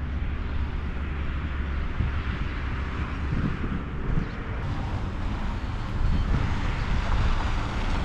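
Fiat Ducato motorhome engine running as it drives slowly across a dirt lot toward the microphone, getting louder near the end as it comes close, with wind buffeting the microphone.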